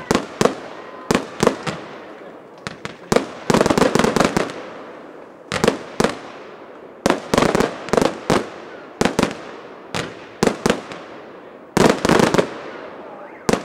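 Small fireworks display going off: a string of sharp bangs at irregular spacing, with several dense clusters of rapid crackling bursts, each bang trailing off in an echo.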